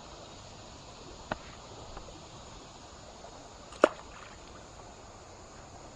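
Creek water running steadily, with two short sharp clicks about two and a half seconds apart.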